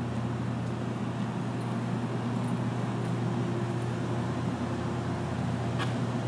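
A steady low engine hum under a broad rushing noise, as from a motor vehicle running. There is a single light click near the end.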